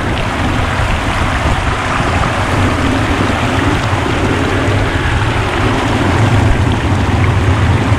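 Heavy rain and tyres running on a wet, flooded road, heard from a moving car: a steady rushing hiss over a low road rumble.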